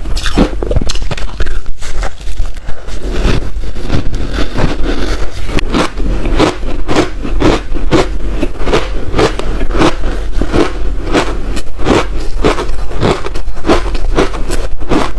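Close-miked biting and chewing of hard chunks of reshaped ice coated in matcha powder: a steady run of sharp crunches, about two to three a second.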